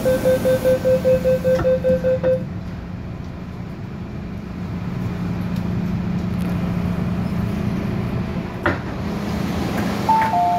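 MTR M-Train door warning beeps, a rapid run of identical beeps for the first couple of seconds as the doors open, then the carriage's steady hum while passengers board. Near the end a two-note high-low chime sounds, the warning that the doors are about to close.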